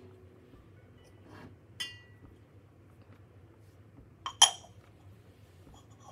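Pour-over coffee ware clinking: one light clink with a short ring about two seconds in, then two sharp clinks close together a little past four seconds, the second the loudest.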